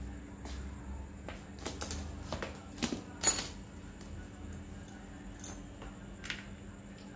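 Small metal bicycle parts and hand tools clinking and clicking as they are picked up and handled while a broken rear derailleur is being worked on, with a cluster of clinks about two to three seconds in, the sharpest just past three seconds.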